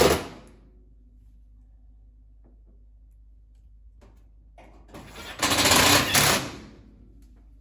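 Cordless power driver running in short bursts, driving sheet-metal screws into a steel stove back panel. One screw finishes right at the start, and a second is driven for about two seconds near the end.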